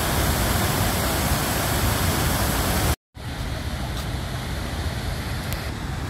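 Lower Düden waterfall's water plunging into the sea, a loud, steady rushing. About three seconds in the sound cuts off abruptly and comes back quieter and duller.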